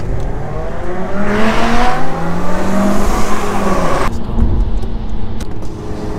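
Car engine accelerating hard, its note climbing steadily for about four seconds, then dropping suddenly to a steadier drone.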